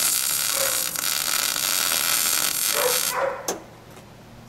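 MIG welder arc crackling steadily while a steel patch is welded, cutting off about three seconds in. A dog yips a few times near the end of the weld.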